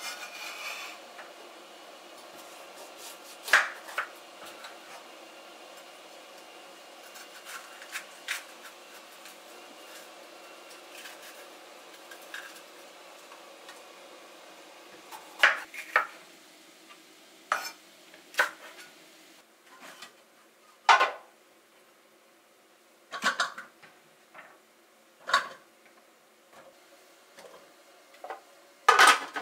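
A kitchen knife cutting tomatoes and bell pepper on a bamboo cutting board, with irregular single knocks of the blade on the wood. Near the end comes a quick cluster of plastic clatters from the food processor bowl being handled.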